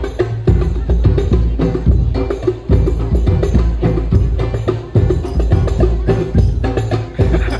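Hadrah music: rebana frame drums beating a busy, steady rhythm of sharp slaps and deep bass strokes, played loud through a line-array sound system.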